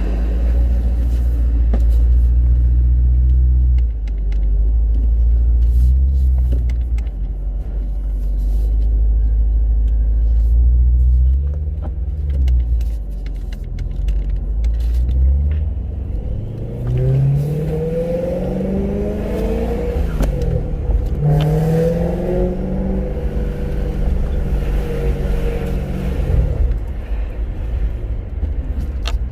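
Supercharged BMW E92 M3's V8 engine running with a deep rumble. In the second half its pitch rises and falls several times as it is revved or accelerated. The car runs after its fuel/no-start fault has been fixed.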